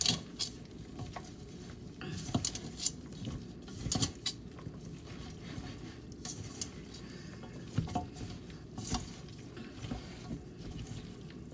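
Gloved hands rubbing curry seasoning into chopped raw chicken: wet squishing and mixing, with irregular clicks and knocks of the pieces against the container.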